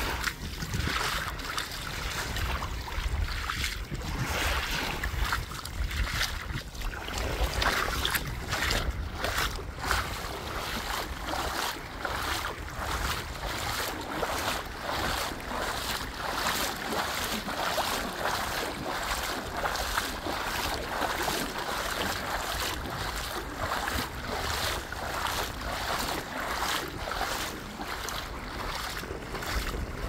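Sea waves washing ashore, with wind buffeting the microphone in a steady low rumble.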